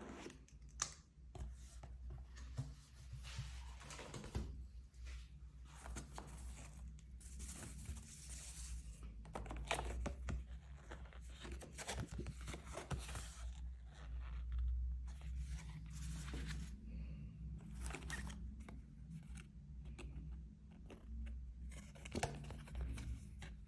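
Keyboard packaging being handled and opened: irregular rustling, crinkling and tearing of paper and plastic wrapping, with scattered sharp clicks and knocks.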